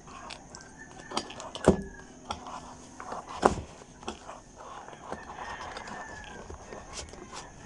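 Hands handling an unboxed gimbal's cardboard box and packaging, with sharp knocks and clicks; the two loudest come a little under two seconds in and about three and a half seconds in. A rooster crows twice in the background, two long drawn calls.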